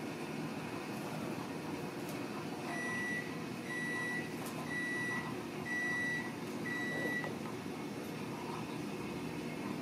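Five evenly spaced electronic beeps, about one a second, each a single high tone lasting about half a second, starting a few seconds in. A steady low background noise runs under them.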